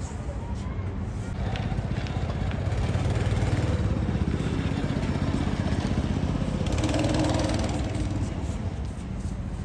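Go-kart engines running, swelling louder through the middle and easing off near the end.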